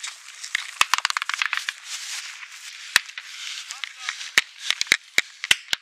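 Small-arms gunfire: about a dozen sharp, irregular cracks, some in quick runs and some single, over a steady hiss. This is the start of a firefight, soon called out as enemy contact to the right.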